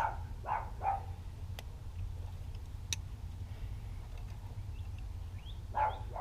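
A dog gives short yips, three near the start and a cluster near the end, over a steady low rumble, with two sharp clicks in between.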